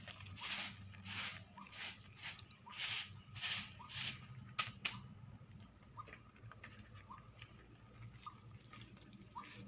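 Rabbits munching and tugging at leafy greens in a plastic crate: a rhythmic rustling crunch, two to three strokes a second, for about four seconds. Then two sharp clicks in quick succession, then only soft scattered ticks.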